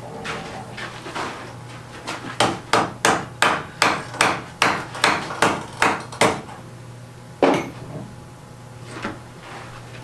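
Blacksmith's hand hammer striking hot iron: a quick run of about a dozen sharp blows, roughly three a second, then a short pause and one more heavy blow.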